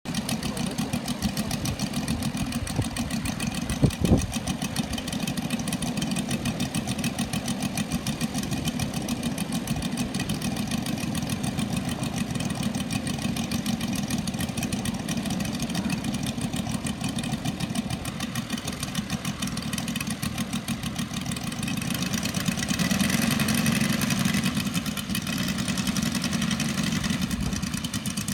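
Two Saito FG-90R3 three-cylinder four-stroke petrol radial engines running steadily at idle on an RC twin-engine model. There is a sharp knock about four seconds in, and the engines rev up briefly from about 22 to 25 seconds in.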